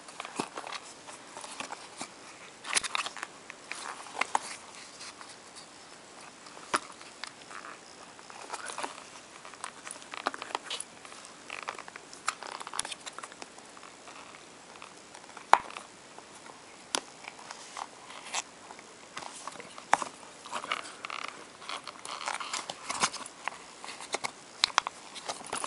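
Handling noise from hands stretching and kneading the soft rubber of a Type A-14 oxygen mask while pressing a microphone into its recess: irregular rubbing, crackling and scattered sharp clicks, the loudest click about a third of the way through.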